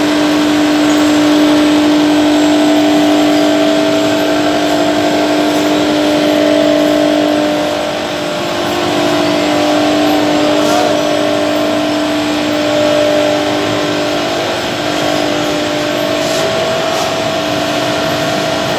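Belt-driven rotary drum machine running, with its burner firing: a steady mechanical drone carrying a constant hum.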